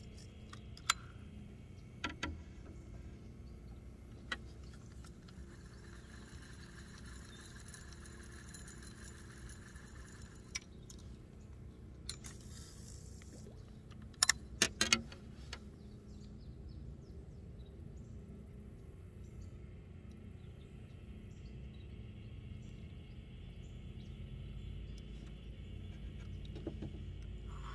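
Light clicks and taps from handling a Zebco 33 spincast reel and rod, several in quick succession about halfway through, over a low steady rumble.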